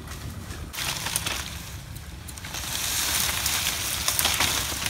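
Wind buffeting the microphone outdoors: a steady low rumble, with a rushing hiss that grows louder about halfway through and a few light clicks.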